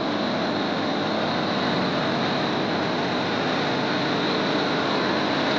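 Steady rushing of a bus's air-conditioning blowers heard inside the passenger cabin of a double-decker bus.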